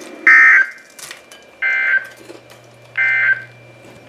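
NOAA Weather Radio SAME end-of-message code: three short, shrill digital data bursts, each about a third of a second long and about a second apart. The code marks the end of the alert broadcast.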